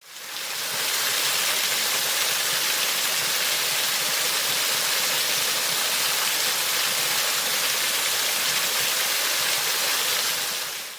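Waterfall's steady rush of falling water. It fades in over about the first second and fades out at the end.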